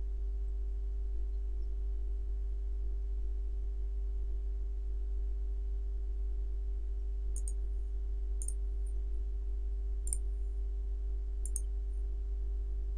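Steady low hum with a fainter steady buzz, and four short, sharp clicks in the second half, a second or so apart, from a computer mouse.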